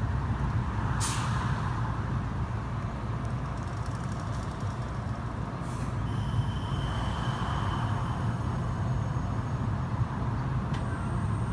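Electric train at a station platform: a steady low rumble, with a short hiss of air about a second in and a faint high tone from about six seconds on.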